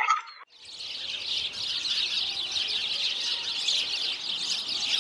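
Dense chorus of small birds chirping, high-pitched and unbroken, starting about half a second in after another sound cuts off sharply.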